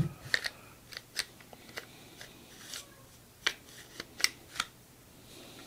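Light metallic clicks and scrapes as a striker-fired pistol's slide is lined up on the frame's rails and slid on during reassembly. The clicks are irregular, with a few sharper ones a little after three seconds and around four seconds in.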